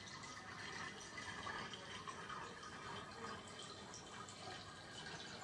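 Faint ambience of a large, nearly empty airport terminal hall: a low steady hiss with scattered faint, distant sounds and no distinct event.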